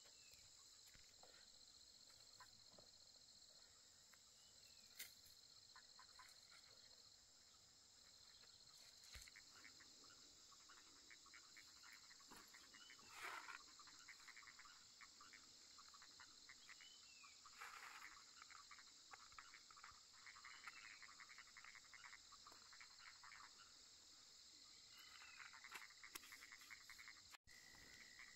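Faint chorus of insects, a steady high-pitched trill, with frogs calling over it in repeated trains of quick pulses.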